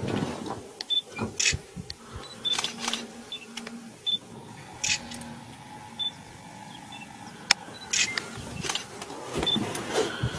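Camera shutter clicks, a dozen or so at irregular intervals, several with a short high beep. A faint steady hum runs through the middle.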